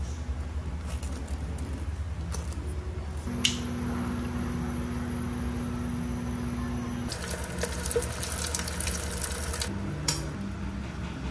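Home kitchen cooking sounds: a click, then a steady electric hum for a few seconds, then about two and a half seconds of sizzling hiss, and another click near the end.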